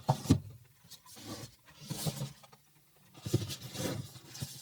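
Handling noise from a cardboard product box: a couple of sharp clicks, then scattered scraping and rubbing, the kind made by turning the box and sliding its lid.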